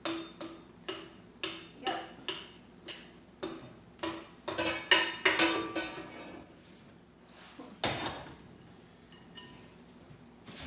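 Metal kitchenware clinking against a pot: sharp knocks about two a second, then a busier stretch of clattering a little after the middle, and a single knock near the end.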